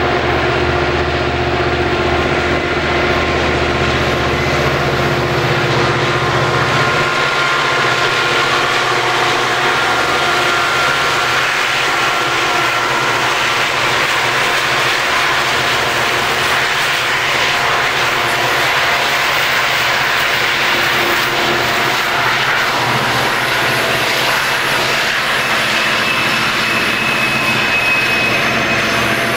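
Southern Pacific SD40T-2 diesel locomotives working hard up a steep grade, their turbocharged EMD V16 engines running loud and steady as they pass. The deep engine drone fades about seven seconds in, leaving the steady rumble of freight cars rolling by.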